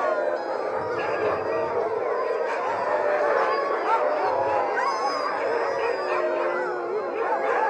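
A pack of many sled huskies howling and yipping together in a continuous chorus, many overlapping rising and falling calls.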